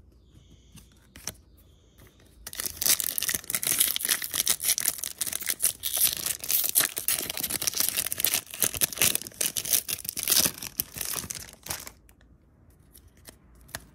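A foil Yu-Gi-Oh booster pack wrapper being torn open and crinkled by hand. It is a dense crackle of tearing and crumpling foil that starts a couple of seconds in and lasts about nine seconds.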